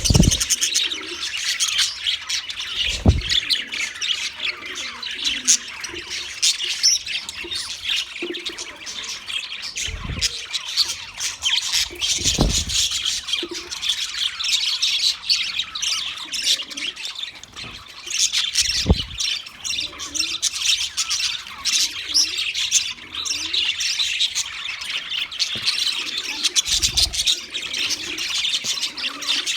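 A group of budgerigars chattering and squawking without pause, many birds calling over one another, with a few dull thumps now and then.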